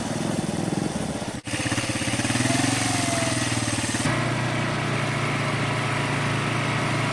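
A small engine running steadily with a fast, even pulse. It drops out for an instant about a second and a half in, then changes tone abruptly about four seconds in and carries on steadily.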